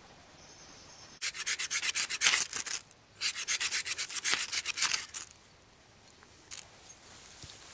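Knife blade scraping a dry stick into fine wood shavings to use as fire tinder: two runs of quick rasping strokes, each about two seconds long, with a short pause between.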